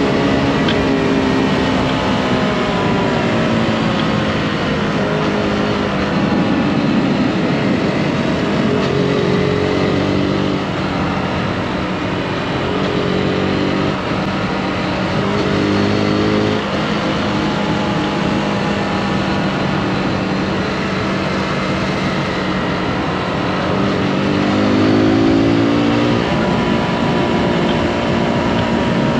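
Zontes G155 Scrambler's single-cylinder engine running under way, its pitch falling as the throttle is rolled off and rising again under acceleration several times, with steady stretches between.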